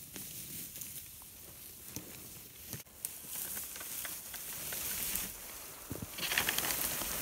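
Old barbed wire being pulled and handled through brush and grass: rustling and scraping with small clicks, loudest a little before the end.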